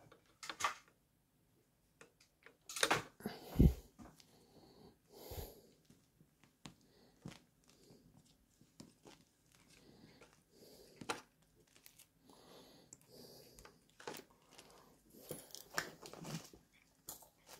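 Faint, scattered clicks, taps and rustles of hand work with a spring bar tool on a watch and its strap, with a louder knock about three and a half seconds in.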